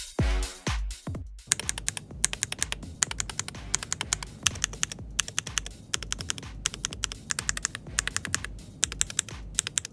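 Fast typing on a keyboard fitted with TTC KOM magnetic switches: a dense run of sharp key clicks, several a second, starting about a second and a half in, over electronic music that opens with a few strong bass beats and then sits quietly underneath.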